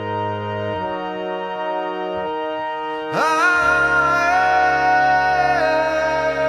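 Outro music of sustained held chords, with a louder, higher melody line that slides up about halfway through and is then held.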